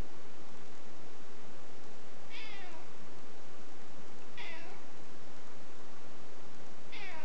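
A domestic cat meowing three times, about two seconds apart, each meow short and falling in pitch.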